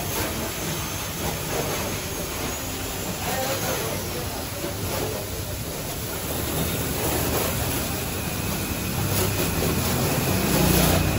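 Car-wash equipment running: a steady rushing noise over a low motor hum that grows louder near the end.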